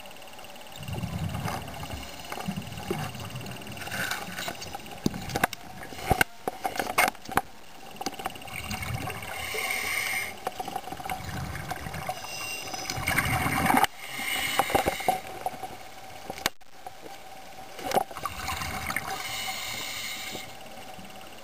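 Underwater handling noise from a camera in its housing as it moves among submerged branches: low rumbling surges of water against the housing, scattered sharp clicks and knocks, and hissy surges every few seconds.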